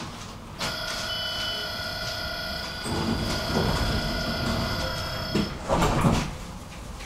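A tram's steady electronic warning tone sounds for about five seconds, cutting in and out abruptly, over a low rumble. Just after it stops, the sliding doors shut with a loud clatter, the signal that they are closing.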